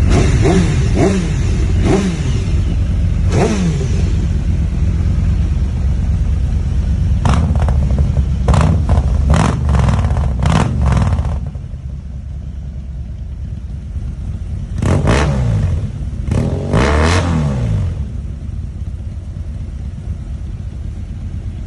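Big motorcycle engine idling, its throttle blipped again and again. Each short rev falls back to idle: a few near the start, a quick run of them in the middle, and a couple more near the end. The idle is quieter after the middle run.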